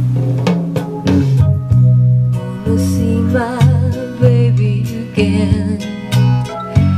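Recorded music with guitar, a deep rhythmic bass line and a voice, played through a small push-pull valve amplifier (a mini EL34 push-pull set) and a pair of small wooden speakers, as a test of the repaired amplifier.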